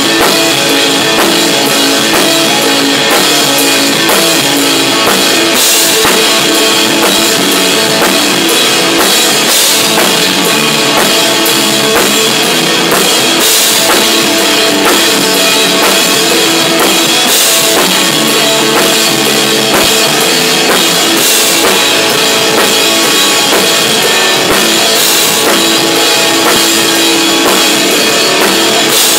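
A rock band playing live and loud: a drum kit, with crash cymbals hit every few seconds, and an electric guitar, in a small rehearsal room.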